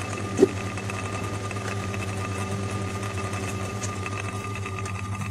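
Electric cooling fan running with a steady hum, cooling the board after the processor's solder has been reflowed. A single short knock sounds about half a second in.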